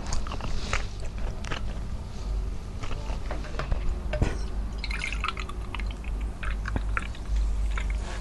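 Small wet mouth clicks, then a drink poured from a plastic bottle into a glass tumbler, splashing and trickling as the glass fills from about halfway in.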